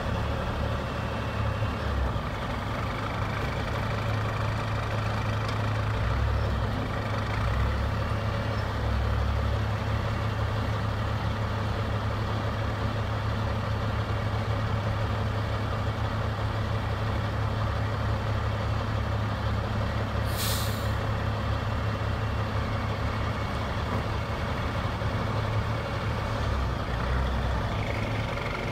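Heavy-duty rotator wreckers' diesel engines running steadily under load as their booms and winches lift a rolled-over cement truck. A brief hiss of air comes about two-thirds of the way through.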